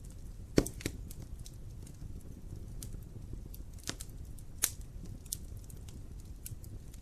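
Fire crackling in a fireplace: irregular sharp pops and snaps over a low, steady rumble, the loudest pop about half a second in.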